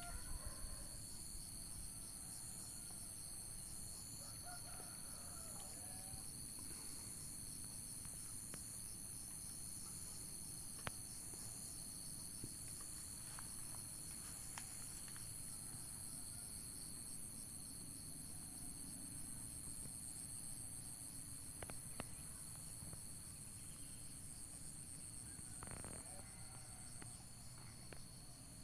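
Steady high-pitched insect chorus with a rapid pulsing trill, over a low outdoor rumble, with a few faint bird calls now and then.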